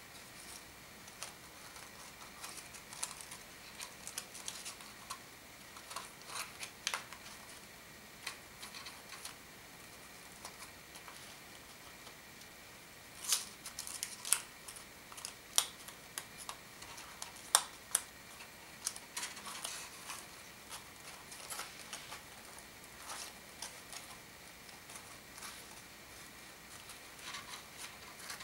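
Sheets of origami paper crinkling and rustling as folded units are tucked and slotted into a modular kusudama ball: scattered short crackles, louder and sharper for a few seconds around the middle. A faint steady high tone sits underneath.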